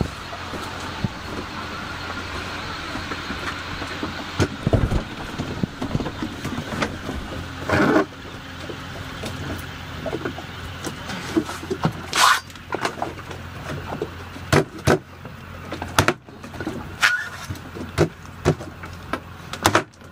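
Sharp knocks and taps of a machete on a green coconut resting on a wooden cutting board, coming thicker in the last several seconds, over a steady low background noise.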